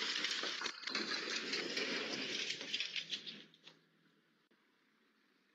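Steady rushing road noise of a moving car picked up by a dash cam, with a faint low hum, dropping away to near quiet about four seconds in.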